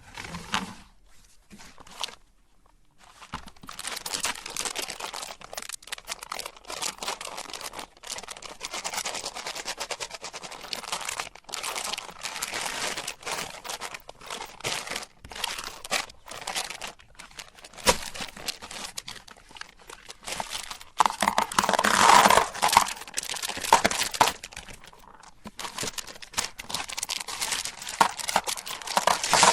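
M&M candies being crushed in a meat grinder: a dense, continuous crunching and crackling of breaking candy shells, after a few isolated clicks at the start, growing louder for a few seconds about two-thirds of the way through.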